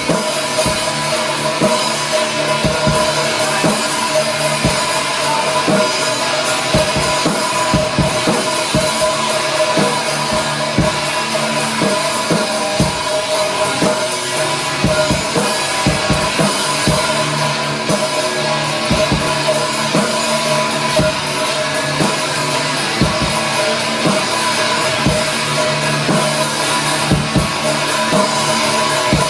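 A live rock band playing loud, with a drum kit hitting steadily over held notes.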